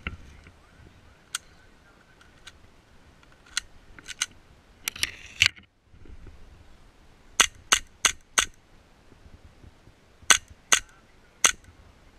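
Custom Tokyo Marui Hi-Capa gas blowback airsoft pistol firing: a quick string of four sharp snaps in about a second, then three more spaced shots near the end. A few fainter single snaps come before them.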